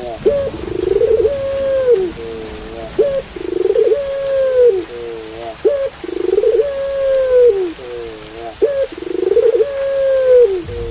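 Puter pelung, a long-voiced barbary dove, cooing: four repeated coo phrases about three seconds apart, each a buzzy rise into a long held note that drops at the end, then a short wavering double note.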